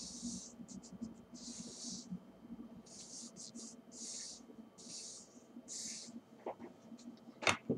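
Fingers rubbing vinyl decal transfer paper down onto a shotgun barrel: a faint, dry scratchy swish with each stroke, about once a second. A sharp tap near the end.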